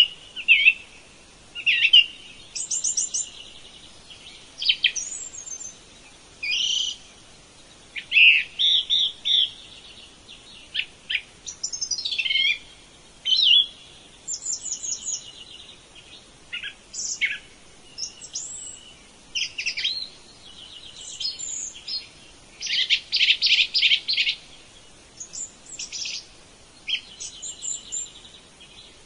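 Songbirds chirping and singing: short chirps, quick trills and sweeping whistled notes follow one another with brief pauses.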